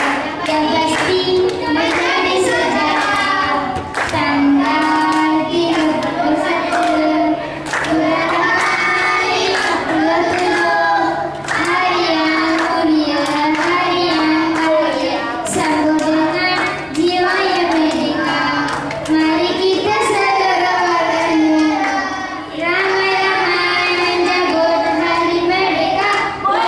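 A young boy singing a song solo into a handheld microphone, in continuous melodic phrases with short breaths between them.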